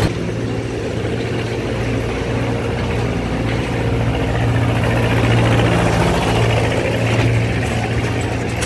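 Steady low hum of the engine of a trackless toy road train, a motor vehicle towing open passenger carriages, running at low speed as the train passes by, a little louder around the middle.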